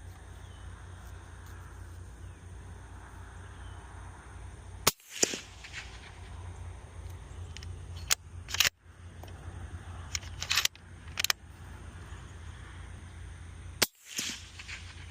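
Three suppressed rifle shots from a .308 bolt-action rifle fitted with a Diligent Defense Enticer L suppressor, each a sharp crack about four to five seconds apart. Between the shots come shorter metallic clicks as the bolt is worked.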